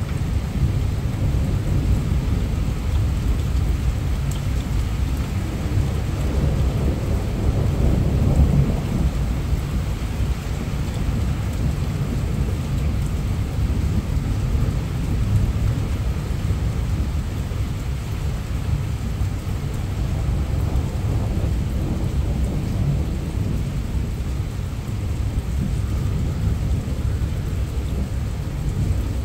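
Heavy rain falling steadily under a low, continuous rumble of thunder that swells about eight seconds in.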